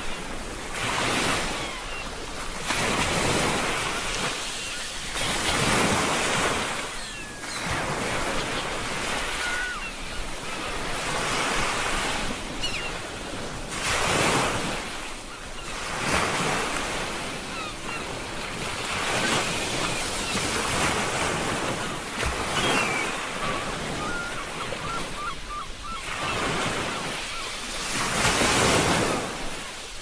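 Ocean waves breaking and washing up a shore, swelling and ebbing in surges every few seconds.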